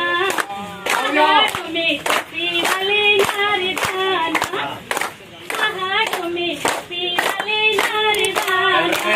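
A group clapping their hands together in a steady rhythm while a voice sings an Uttarakhand Holi folk song over the claps.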